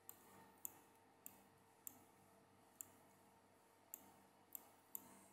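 Faint, sharp clicks, about eight of them, the first few evenly spaced a little over half a second apart. A faint steady hum runs underneath.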